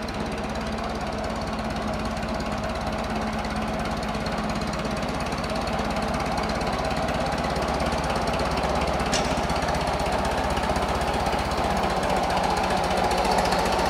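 Westland Lysander's nine-cylinder Bristol Mercury radial engine running in flight, a fast even pulsing that grows gradually louder.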